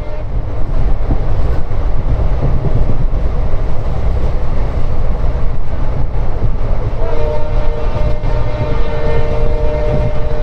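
Passenger train running on the track, a steady low rumble. About seven seconds in, the horn of the WDP4 diesel locomotives starts sounding: a chord of several tones, held steadily.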